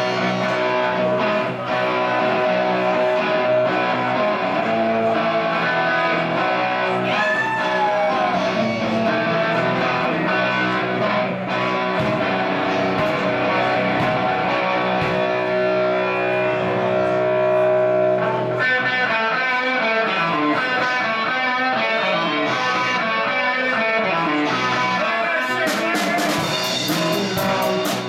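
Live rock band playing an instrumental passage: electric guitars over bass guitar and drums.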